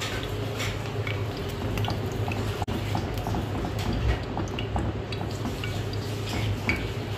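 A spatula stirring a thick, wet spice batter in a metal pan: soft wet squelching with scattered light scrapes and taps against the pan.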